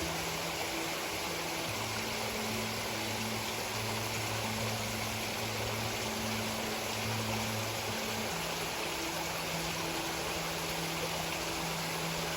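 Small stream running: a steady rush of water. Low held notes, like soft background music, sit under it and shift to a new chord about two seconds in and back again about eight seconds in.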